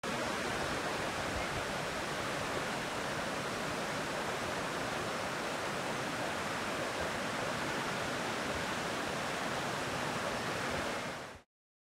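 Steady rushing of water, cut off just before the end.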